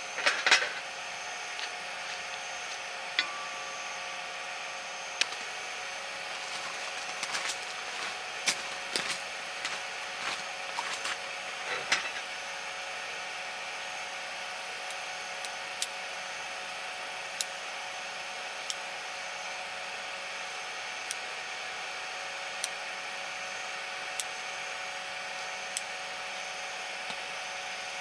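Camping induction cooktop running under a griddle, with a steady hum and whine. Half a second in, a butter wrapper rustles, scattered clicks and scrapes follow from utensils on the griddle, and in the second half a light click comes every second and a half or so.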